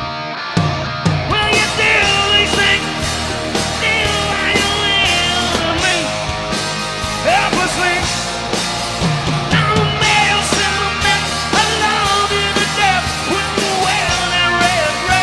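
Hard rock band playing live: distorted electric guitars, bass guitar and drums, with a singer's voice over them.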